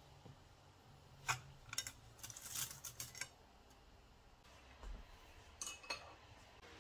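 Dried flat noodles clattering as they are dropped into a pan of water, brittle sticks clicking and rattling against the pan. The clicks come in a run from about two to three seconds in, with a few more near the end.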